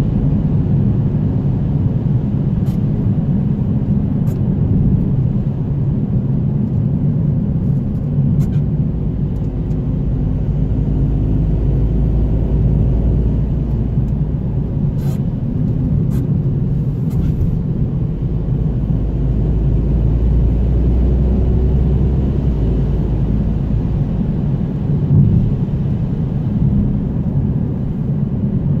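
A car driving on a wet country road, heard from inside: a steady low rumble of engine and tyres, with a few faint ticks.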